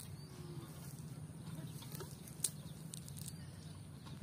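Cast net being handled: a few sharp clicks, the loudest a little past halfway, over a steady low hum, with faint bird calls.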